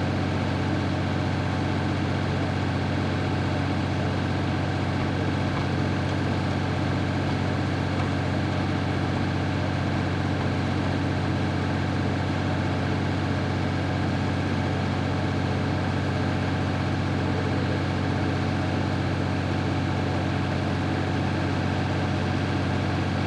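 A vehicle engine running at a steady, even hum, with no change in pitch or level.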